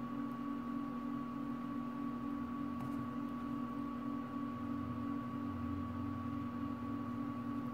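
Steady electrical hum with a constant higher whine over a faint hiss, unchanging throughout, with one faint tick about three seconds in.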